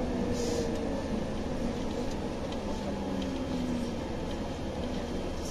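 Interior noise of a Scania OmniLink city bus under way: a steady low engine and road rumble, with a faint humming tone that shifts in pitch.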